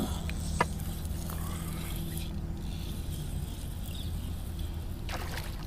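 Electric trolling motor running with a steady low hum, part of which drops away about three and a half seconds in; a single sharp click about half a second in.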